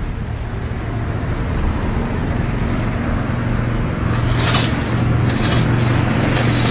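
An engine running steadily with a low hum that grows slightly louder, with a few short hissing noises from about four seconds in.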